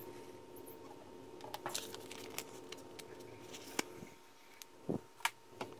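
A loose 9 mm snap-off cutter blade drawn by hand across PPF film on a cutting mat, half-cutting the top layer: faint scratching and ticking, then the plastic film crackling as it is lifted, with a few sharper clicks near the end.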